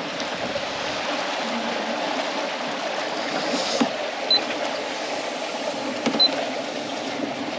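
Steady rush of sea water past a sailboat's hull, with two short high beeps from the autopilot control keypad as its buttons are pressed, a little after four seconds and again about six seconds in.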